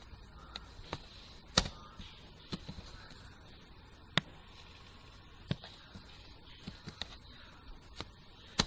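Computer keyboard keystrokes and mouse clicks while code is edited: scattered sharp clicks at irregular intervals over a faint steady hiss.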